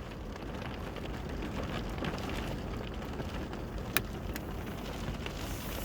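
Small hail mixed with snow falling, a steady hiss of pellets pattering with many light ticks and one sharper tick about four seconds in.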